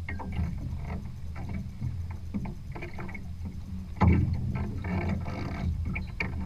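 Water slapping and splashing against the hull of a small sailing trimaran under way, over a steady low rumble. The irregular slaps come every fraction of a second, and the loudest splash is about four seconds in.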